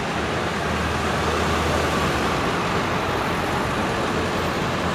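A procession of emergency vehicles, ambulance vans and fire trucks, driving past with a steady rumble of engines and tyres, with no sirens sounding. A low engine drone is strongest in the first two seconds or so as an ambulance van passes close by.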